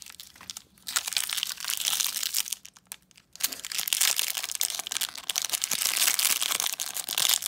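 Crinkly foil blind-bag wrapper crackling as it is handled and worked open by hand, with a brief pause about three seconds in.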